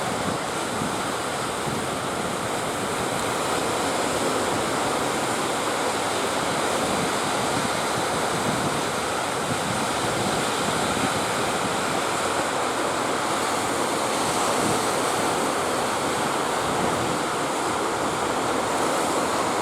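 Steady rush of breaking surf mixed with strong wind buffeting the microphone, an even noise with no distinct events.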